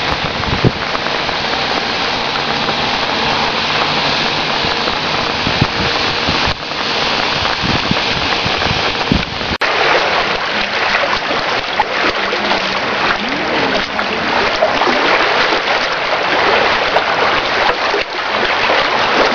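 Heavy rain hissing steadily. About halfway through it gives way to flooded lake water splashing and washing over a paved promenade.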